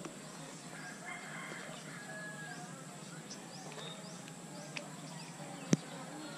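Faint rural background of roosters crowing and small birds chirping, with one sharp click about five and a half seconds in.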